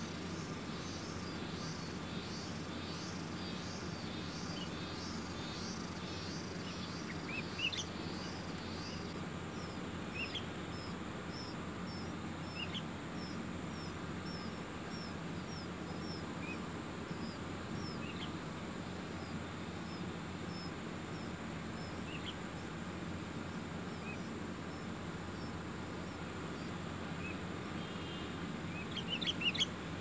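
Outdoor insect chorus: a very high pulsing trill that stops about nine seconds in, and a run of short chirps repeated about once a second. Scattered short bird chirps come over it, with a quick burst of several louder chirps near the end.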